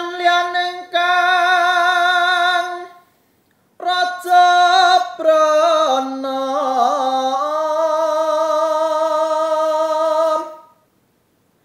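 A man singing a Javanese macapat verse solo and unaccompanied, in long held notes with a wavering, ornamented line. Two phrases, with a short pause for breath about three seconds in.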